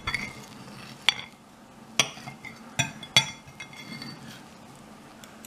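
Metal fork and knife clinking against a ceramic plate while cutting an omelette, with about six sharp clinks spread unevenly across a few seconds.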